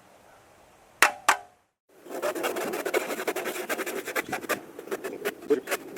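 Shark tooth hand saw cutting through a wooden 2x3: two sharp knocks about a second in, then after a short break a steady run of rasping saw strokes through the wood.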